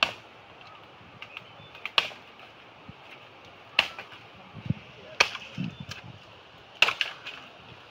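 Machete blade chopping into the base of a green bamboo stalk: five sharp chops, about one every one and a half to two seconds.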